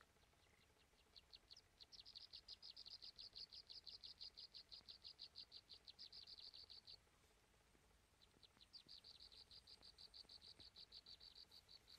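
Faint insect trill: a fast, even run of short, high chirps, about seven a second, that stops about seven seconds in and starts again a second and a half later.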